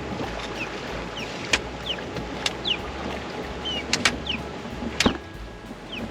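Wind and water noise around a fishing boat, with a low rumble. Several sharp knocks or clicks sound through it, and short high chirps are scattered throughout.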